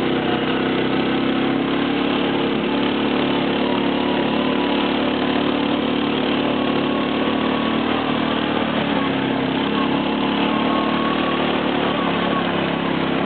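Quad (ATV) engine running at a steady pitch while the quad is ridden along at an even speed.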